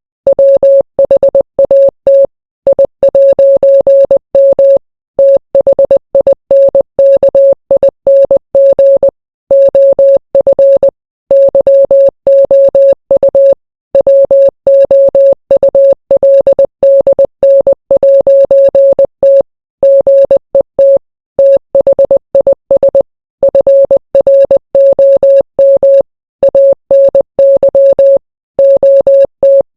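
Morse code sent as a single-pitched electronic beep, keyed on and off in short dots and longer dashes, with longer pauses between letters and words.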